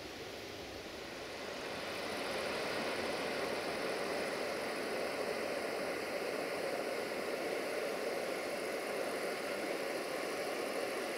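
River water rushing over rapids and a small waterfall: a steady, even rush that swells about two seconds in and then holds.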